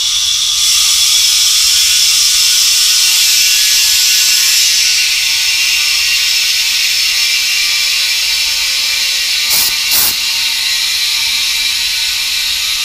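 Compressed air hissing through a just-opened ball valve and brass fittings into an empty 26-gallon compressor tank as it fills, strongest for the first few seconds and easing a little after about five seconds. Two brief clicks about ten seconds in.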